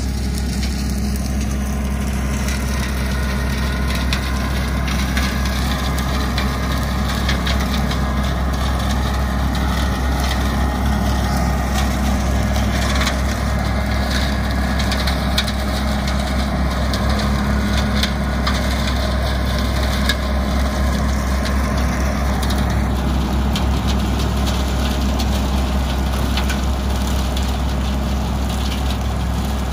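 Compact tractor engine running steadily under load as its rear-mounted rotary cutter (brush hog) mows through brush and saplings, with frequent snapping and crackling of woody stems.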